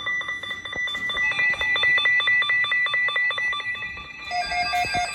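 Electronic alert tones beeping in a rapid, even pulse, several pitches sounding together; about four seconds in the pattern changes and a lower tone joins.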